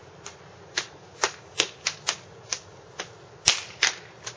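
Hands slapping and clapping together in a secret handshake: about ten sharp slaps in an uneven rhythm, the loudest about three and a half seconds in.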